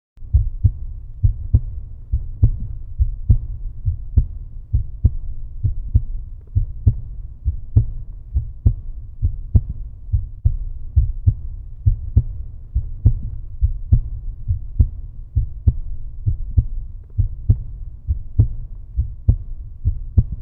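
Heartbeat sound: deep, low thumps in a steady lub-dub rhythm, a little under one beat a second (about 70 a minute), starting a moment in.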